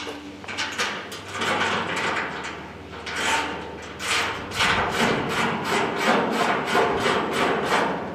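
Ratchet wrench working the hood bolts loose on an old tractor: quick rasping strokes in bursts, several a second, getting louder about halfway through.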